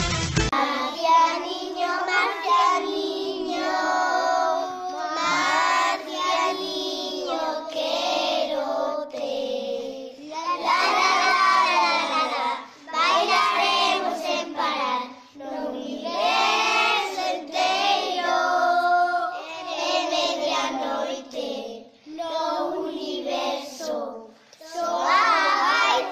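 Children singing a song, in phrases separated by short pauses.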